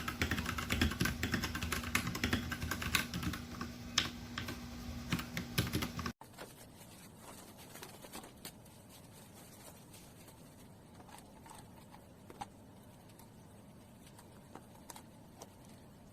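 Fast typing on a Royal Kludge RK R87 mechanical keyboard, a dense run of key clicks for about six seconds. It then cuts off abruptly, leaving only a few scattered faint clicks.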